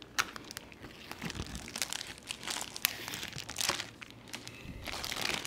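Plastic wrapping on a raw brisket being slit with a knife and pulled away: irregular crinkling and tearing of the plastic, with scattered sharp crackles.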